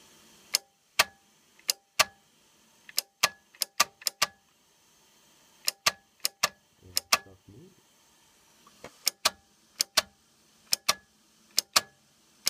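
Tape deck transport mechanism clicking sharply, about two dozen clicks in irregular clusters of two to four, each with a short ring. The mechanism has just been freed up with spray and seems to be working again.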